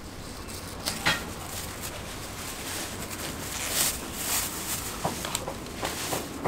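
Thin plastic bag crinkling as it is opened and a wrapped flatbread is slipped into it, over steady background noise, with a sharp click about a second in.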